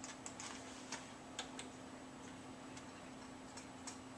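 Computer mouse clicking, about ten short, irregular clicks, faint over a steady low hum.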